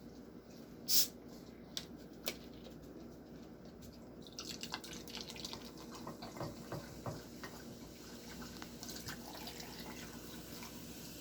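A few sharp clicks and knocks, the loudest about a second in, then from about four seconds a soft steady fizzing hiss with small pops and drips: carbonated soda being poured into a cup.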